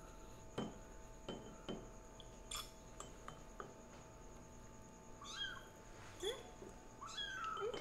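A month-old kitten mewing several short times in the second half. Before that come a handful of light clicks and taps.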